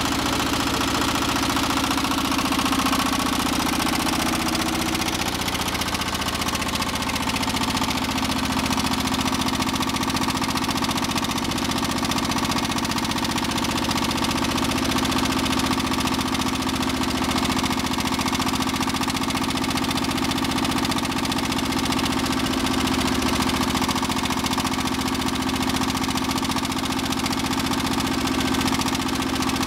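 Armstrong Siddeley ASH1 single-cylinder air-cooled stationary engine running, its speed wavering for the first few seconds and then settling into a steady beat.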